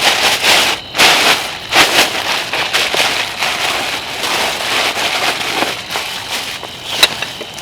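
Plastic being handled, crinkling and rustling loudly in irregular bursts with brief pauses.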